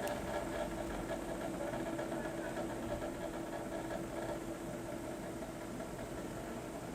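A steady mechanical hum with a couple of constant tones over low noise, unchanging throughout.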